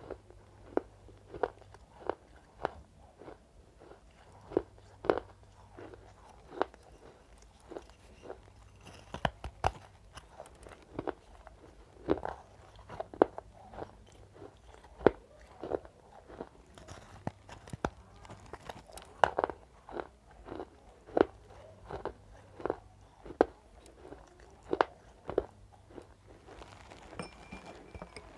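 Crunchy dry clay chalk being bitten and chewed close to the microphone: a string of sharp crunches, about one or two a second.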